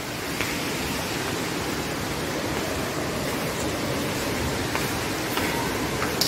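A steady rushing noise with no clear pitch, holding an even level throughout, with a few faint clicks.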